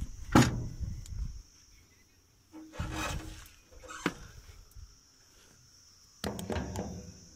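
Irregular knocks, scrapes and rubbing of handling against the excavator's metal bodywork: a sharp knock about half a second in, a rough scrape around three seconds, and a cluster of knocks near the end. A steady high hiss runs underneath.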